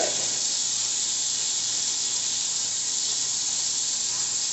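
Kitchen tap running steadily into a sink while raw turkey wings are washed, an even hiss of water.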